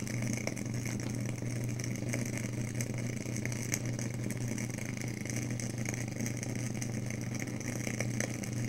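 Vapour-ring humidifier running with a steady low hum.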